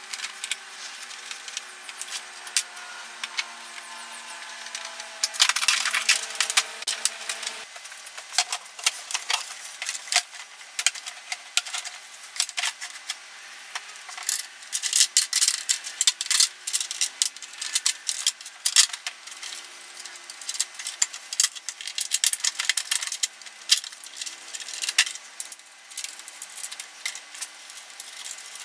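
Plastic scooter body panels and small parts being handled and fitted back on by hand: an irregular run of clicks, knocks, rattles and rubbing of plastic, busiest in a few spells.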